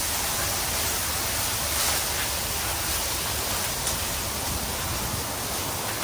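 Chicken pieces sizzling steadily on a hot Blackstone flat-top griddle, with a few faint scrapes of a metal spatula on the steel. A low rumble of wind on the microphone runs underneath.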